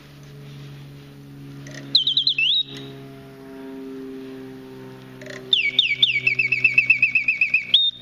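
French Bontems singing bird automaton's bellows-blown piston whistle sounding two song phrases: a few quick falling chirps about two seconds in, then from about five and a half seconds a longer run of falling chirps into a fast trill, ending on a rising note. A steady low hum of the running clockwork movement lies underneath.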